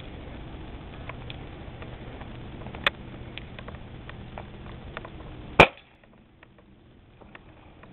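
Two sharp pellet-gun shots about three seconds apart, the second much louder, over a low steady hiss with scattered faint ticks.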